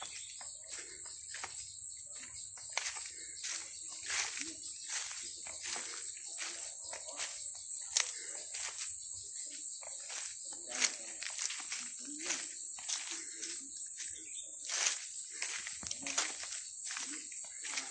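A steady, high-pitched drone of insects, crickets or cicadas, with many short chirps and calls of other animals scattered over it.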